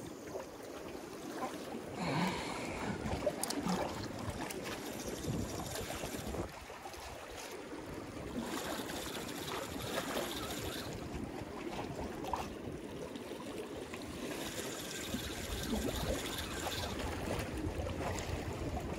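Sea water lapping and sloshing against concrete breakwater blocks, an irregular wash of water noise.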